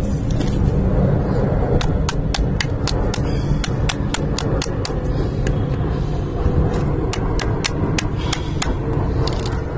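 Steel pliers tapping repeatedly on a cooler fan motor to knock it out of its plastic mount plate: sharp taps about three to four a second, in two runs with a pause between, over a steady low rumble.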